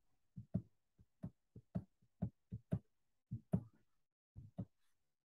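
Computer mouse clicking faintly about a dozen times in quick, uneven succession, the clicks often coming in pairs: advancing a slideshow's animations step by step.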